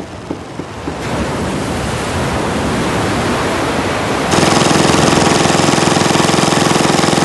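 A motor on a small fishing boat running, with a rushing noise that builds over the first seconds; about four seconds in, a much louder steady, buzzing mechanical drone takes over.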